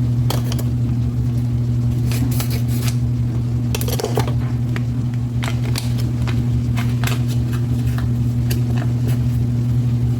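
A steady low electric hum from kitchen equipment, with scattered light clicks, crackles and rustles from cooking and handling at the stove; the strongest click comes about four seconds in.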